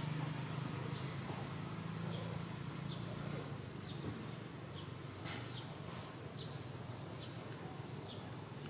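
A steady series of short, high chirps, about one every three-quarters of a second, each sliding slightly down in pitch, over a low steady hum.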